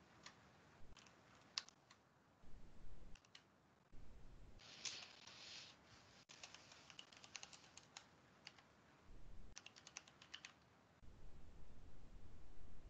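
Computer keyboard being typed on: faint scattered key clicks, with a quick run of keystrokes in the middle.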